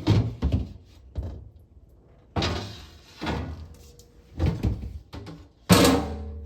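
A series of clunks and knocks from things being moved and set down in a refrigerator during cleaning, about six in all, the heaviest near the end with a short ring after it.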